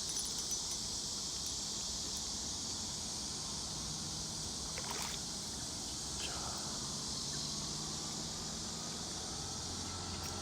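Steady high-pitched chorus of summer insects, with a few faint clicks about five and six seconds in.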